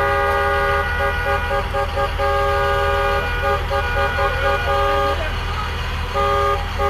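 Car horns honking in long held blasts, fading out after about four seconds, with a run of short toots starting near the end, over a steady low traffic rumble.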